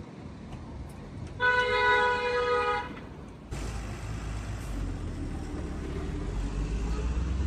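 A vehicle horn sounds one steady honk lasting about a second and a half, then a motor vehicle passes close by, its low engine and road rumble swelling and starting to fade near the end.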